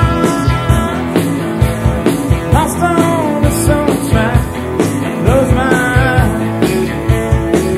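Live country-rock band playing an instrumental break: a steady drum beat under a lead melody with bending, sliding notes.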